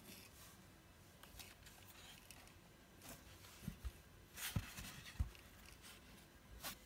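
Faint handling noise: scattered rustles of a hand brushing over a cloth backdrop, with a few soft thumps around the middle.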